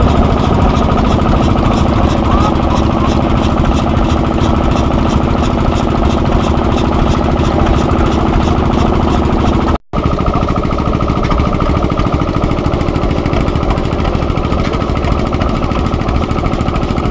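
1925 Kromhout M2 tractor engine running steadily at idle with an even, rapid beat. The sound breaks off for a split second about ten seconds in.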